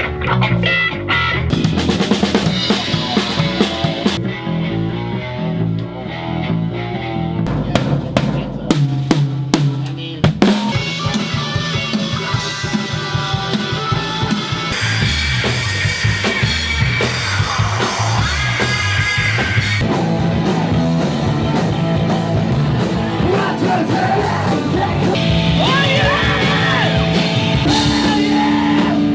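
Music with drums playing a busy beat over pitched instruments.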